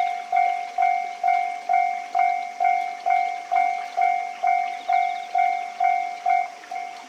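Japanese level-crossing warning bell ringing, a single pitched strike repeating about twice a second, each strike fading before the next. Shortly before the end the strikes become quieter.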